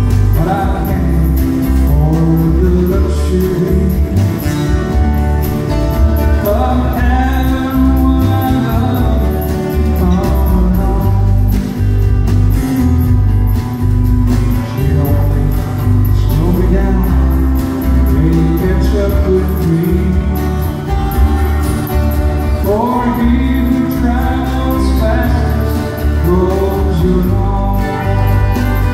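Live country-western band: several acoustic guitars strummed together with a fiddle, and men singing into microphones.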